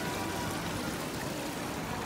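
Fountain water splashing in a steady wash, with faint music in the background.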